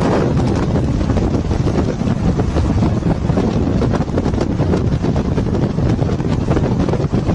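Heavy wind buffeting on the microphone over the rumble of vehicles driving at speed, as heard from inside a moving vehicle.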